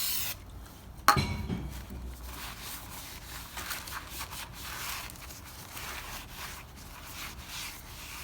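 The tail of an aerosol brake-cleaner spray hissing, then a sharp metallic clank that rings briefly about a second in. After that comes uneven rubbing as the new brake disc is wiped down to take off its anti-rust storage oil.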